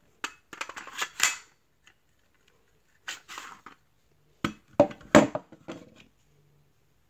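Clicks and knocks of a KWC CO2 BB pistol and its magazine being handled and set down on a hard table. There is a cluster of clicks near the start, a few more around three seconds in, and then a run of sharper knocks, the loudest about five seconds in, as the pistol is put down.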